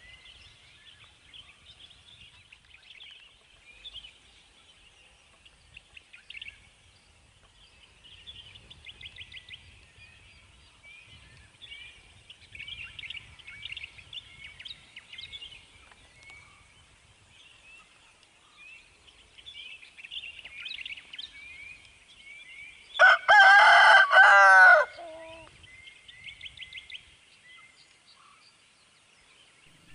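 A rooster crows loudly once, for about two seconds, near the end, with small birds chirping steadily throughout.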